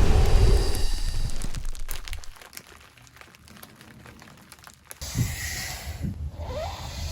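A layered flamethrower-style sound effect: a loud low rumbling whoosh fades out over the first two seconds, leaving faint crackling like burning, then a second hissing burst starts about five seconds in.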